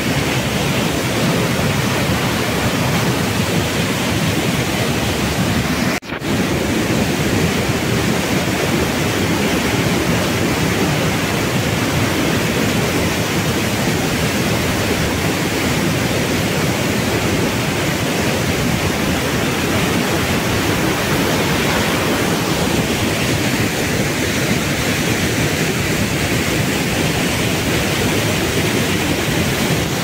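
Waterfall rushing, a loud steady wash of noise, with a brief dropout about six seconds in.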